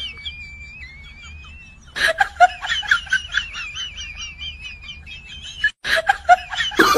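High-pitched snickering laugh in quick repeated pulses, starting about two seconds in, after a thin wavering whistle-like tone.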